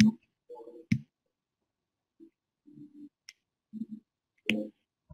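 A few sharp clicks, about four, with soft, short low sounds between them.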